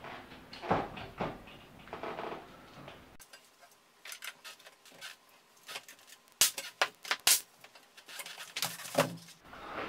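Pneumatic nail gun firing a series of sharp shots as the trim is tacked in place, with the loudest three in quick succession a little past the middle.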